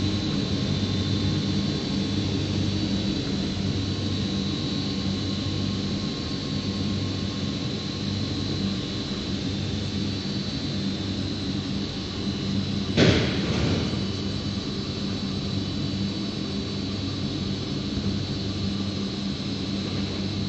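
ABA three-layer blown film extrusion machine with a rotating die running: a steady machine hum and rush of air with a faint high whine. A single loud bang about two-thirds of the way in.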